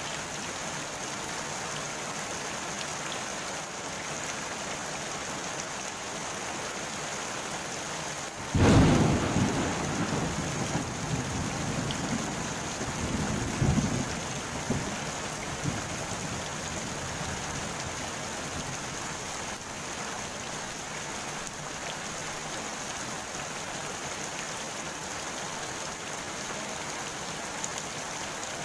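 Steady rain falling on the surface of a pond, an even hiss. About eight seconds in, a sudden clap of thunder rumbles on for several seconds with a second swell, then fades back under the rain.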